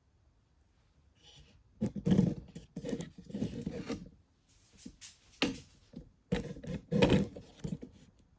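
Scraping and rustling of objects being handled, in irregular bursts that start about two seconds in.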